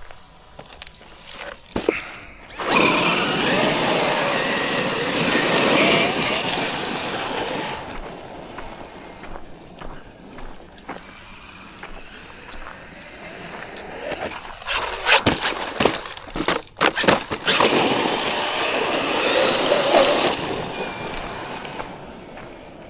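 Traxxas Maxx V2 RC monster truck driven hard on loose gravel: its electric brushless motor whines under the hiss of the tyres spraying gravel, in two long runs. Just before the second run there is a cluster of sharp knocks.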